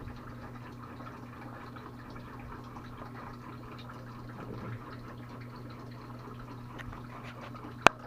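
A steady low hum with a faint background hiss and scattered faint ticks, broken by one sharp click just before the end.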